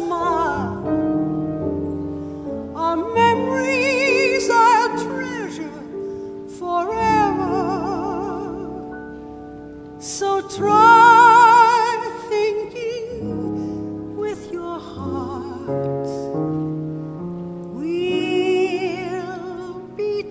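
A woman singing a slow ballad with piano accompaniment: several long phrases with wide vibrato on held notes, with sustained piano chords between them.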